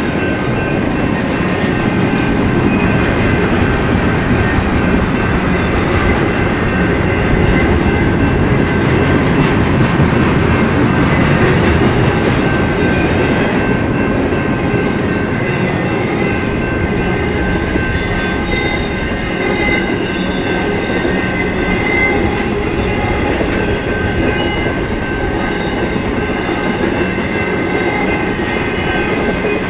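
Intermodal freight train cars rolling past steadily, wheels clattering over the rails, with a faint high ringing held over the rumble.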